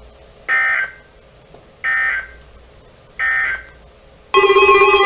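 Emergency Alert System end-of-message data bursts on NOAA Weather Radio: three short, identical bursts of buzzy digital tone about a second and a half apart, marking the end of the warning. About four seconds in, a louder steady chord of electronic tones begins.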